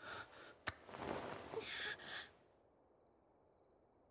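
Breathy gasps and sharp intakes of breath with a click among them, lasting about two seconds. After that only a faint, steady high trill remains.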